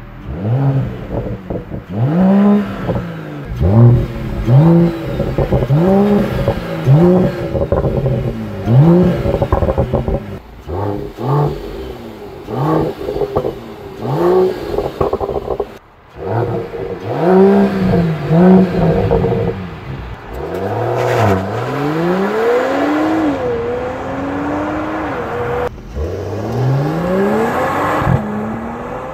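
Mercedes-AMG E 53 Coupe's turbocharged 3.0-litre straight-six through its exhaust: a run of free revs at standstill, each rising and falling in pitch, then the car accelerating away hard, the engine note climbing in pitch through several gears.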